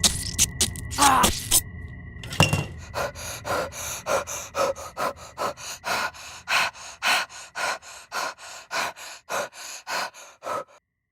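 A person's groaning cry, then a long run of ragged gasping breaths, two to three a second, that cut off suddenly near the end.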